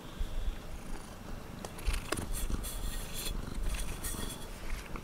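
Domestic cat purring steadily close to the microphone, with crackling rustles twice in the middle as its fur brushes the microphone.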